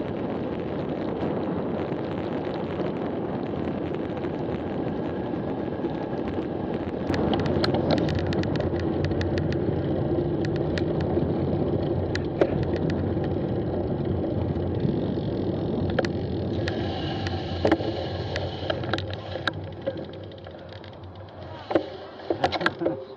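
Steady wind and tyre rush on the microphone of a road bike's action camera at speed, with scattered sharp clicks and rattles from the bike. The noise falls away near the end as the bike comes to a stop, with a few louder knocks.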